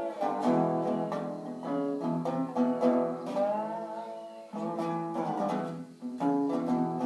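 Tricone resonator guitar being played: a run of plucked notes ringing on, with one note gliding in pitch about halfway through.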